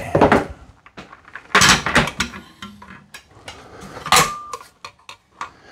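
Office chair parts being handled on a stone countertop: a few clacks, scrapes and clicks as the seat is shifted and the metal tilt mechanism is picked up and set against the seat's underside, with a brief high tone about four seconds in.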